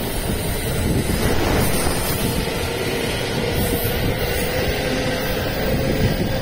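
JR West 225 series and 223 series electric multiple unit pulling out and running past at low speed: a steady rumble of the wheels on the rails, with a faint steady tone over it.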